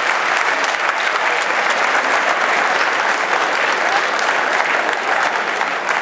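Audience applauding steadily, a dense mass of hand claps without a break.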